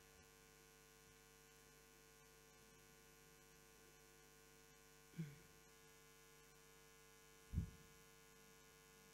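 Steady low electrical hum of mains hum through the sound system, with two short low thumps, a soft one about halfway and a louder one later on.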